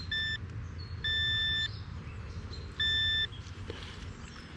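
Metal detector sounding on a buried target: three steady high-pitched beeps, a short one at the start, a longer one about a second in and another near three seconds in, over a low steady rumble.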